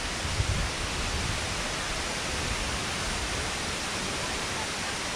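Steady rushing noise of the 105-metre Tamul waterfall falling into its gorge, with a brief low rumble on the microphone about half a second in.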